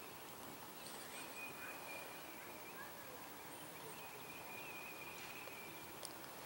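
Quiet open-air background with two faint, high, steady whistling tones, each lasting about a second and a half, and a light tick near the end.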